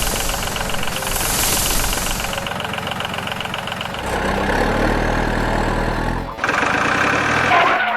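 Vehicle engine running with a fast, regular ticking. About four seconds in it changes to a lower rumble, then cuts off suddenly about six and a half seconds in, and a different, higher engine sound takes over.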